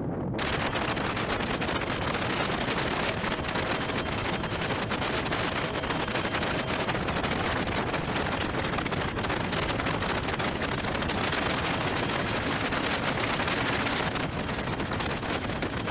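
Helicopter engine and rotor noise heard from on board: a steady dense rush with a thin high whine running through it.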